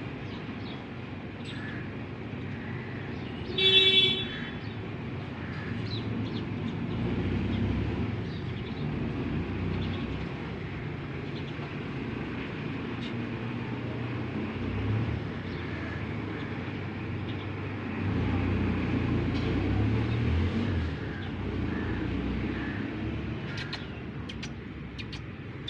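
Steady rumble of road traffic, swelling twice as vehicles pass, with one short horn toot about four seconds in.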